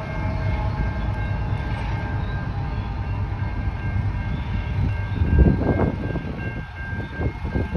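CN freight train rolling away past a grade crossing, its locomotive and cars giving a steady low rumble. Faint steady high tones run over it, and a louder low surge comes about five and a half seconds in.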